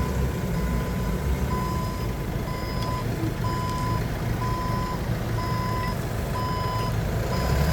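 Forklift reversing alarm beeping about once a second, each beep a short steady tone, over the low rumble of the forklift's engine running as it backs up.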